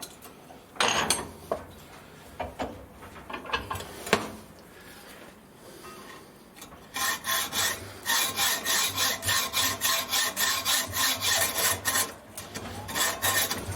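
Hand hacksaw cutting through aluminium bar stock, with rasping back-and-forth strokes. A few scattered strokes come first, then a steady run at about three strokes a second from about halfway in.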